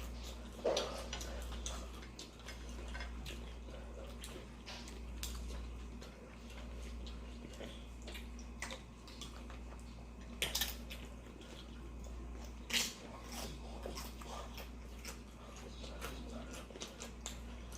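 Close-up chewing and crunching of chips with nacho dip: many small crisp crackles, with three louder crunches spread through, over a steady low hum.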